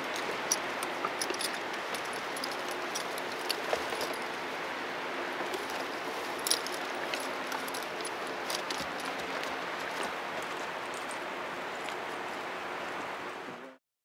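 Electric floor fan blowing, a steady rushing of air with a faint motor hum, with scattered light clicks and jingles over it. The sound cuts off abruptly near the end.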